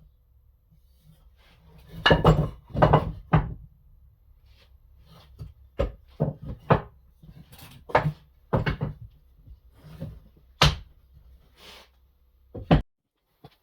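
Irregular wooden knocks and scrapes of larch boards, with a cluster of louder knocks a couple of seconds in and a sharp knock near the end.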